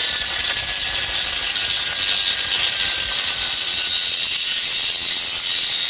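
Angle grinder with a cut-off wheel running and cutting through a length of compressor air-line tubing: a steady, loud, hissing grind, with the motor's whine sinking slowly in pitch under load.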